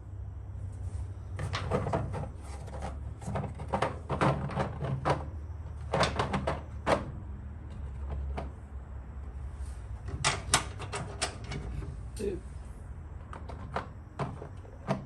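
Irregular clicks, knocks and clatter of hand tools and metal parts being handled during work on a car's engine bay, in bunches with short pauses, over a low steady hum.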